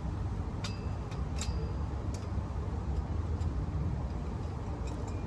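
A few scattered light clicks and taps, as of plastic animatronic parts being handled while unboxing, over a steady low rumble.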